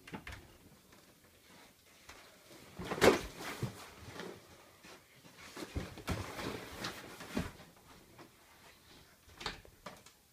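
A run of knocks, thumps and rustling from people moving and handling things at a doorway, loudest a sharp knock about three seconds in and a cluster of thumps in the middle.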